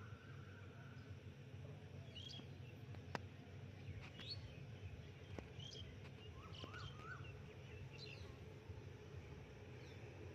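Faint outdoor ambience with a steady low background hum and small birds chirping briefly every second or two. There is one sharp click about three seconds in.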